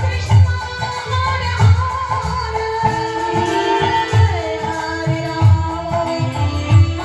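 Kirtan devotional music: singing over a melodic accompaniment, with deep hand-drum strokes keeping a steady beat.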